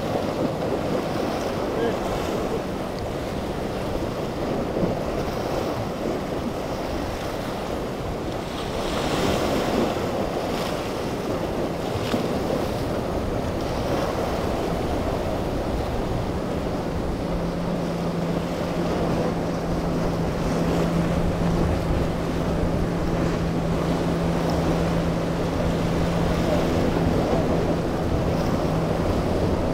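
Outboard-powered center-console boat running at speed through choppy water, its hull splashing over the waves, with wind buffeting the microphone. A steady engine drone comes through about halfway in and holds until near the end.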